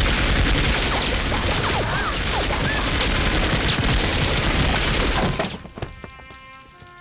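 Sustained submachine-gun fire from several guns, a dense volley of rapid shots that cuts off about five and a half seconds in. It gives way to a quiet held music chord with a few faint clicks.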